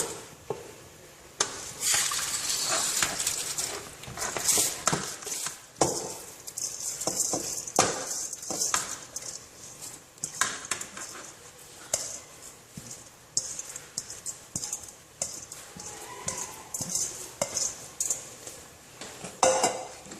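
Clinking and scraping of a pot and kitchen utensils as washed rice is put into the pot, with many sharp knocks and spells of a high, sandy hiss.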